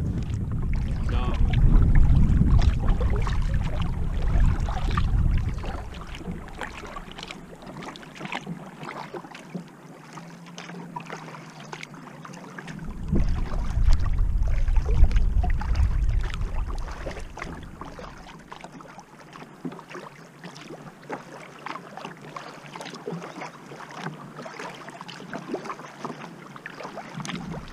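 Kayak paddling: the paddle blades splash and drip water in a steady run of strokes. Wind buffets the microphone in two long gusts, one at the start and one about halfway through.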